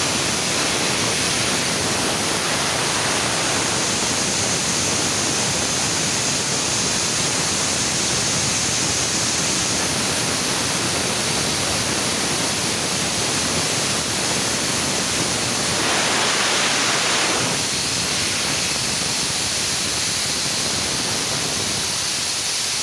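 Maruti 7.5 hp two-cylinder air compressor with its 500-litre tank running, a steady noisy rush with hiss. About sixteen seconds in, a louder hiss lasts about a second and a half.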